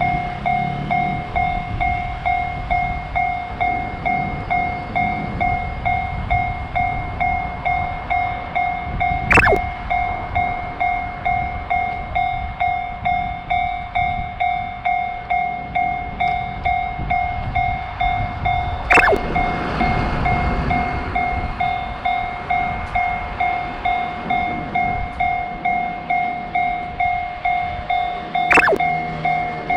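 Japanese railroad crossing warning bell ringing steadily, a repeating electronic ding over a low rumble. Three times, about ten seconds apart, a short sharp sound sweeps down in pitch.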